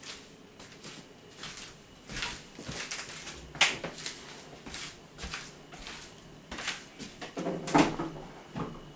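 Bottles and groceries being handled and put away into a fridge: a run of short knocks and clatters, the sharpest about three and a half seconds in and again near eight seconds in.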